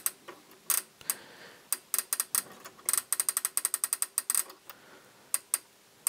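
Copal 707 flip-clock clockwork ratcheting as its alarm-setting knob is turned by hand: irregular runs of sharp clicks, with rapid bursts of clicking about three and four seconds in.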